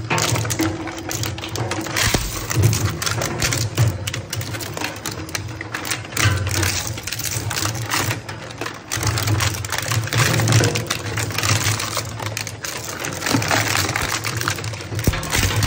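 Twin-shaft industrial shredder chewing hard scrap parts between its interlocking cutter discs: a steady low drive drone under dense, irregular crunching, cracking and clattering as the pieces are torn apart.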